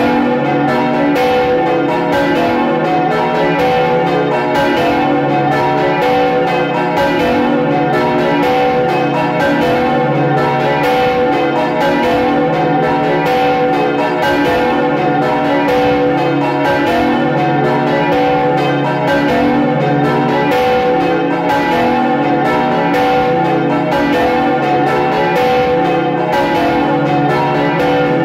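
Five swinging church bells of one parish belfry ringing together, heard up close in the bell tower, their strikes overlapping in a steady, continuous peal.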